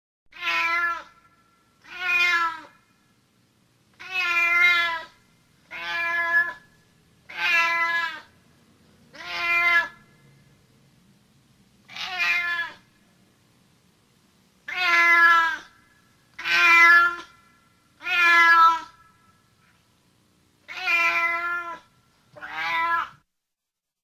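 Domestic cat meowing repeatedly: about twelve separate meows, each under a second long, spaced a second or two apart.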